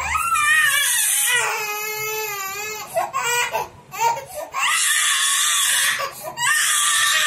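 Baby wailing: one long wavering cry, a few short sobs, then two more long loud wails with brief catches of breath between them.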